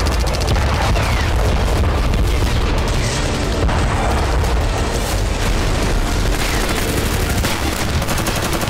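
Continuous deep booming rumble of explosions, with scattered sharp cracks over it.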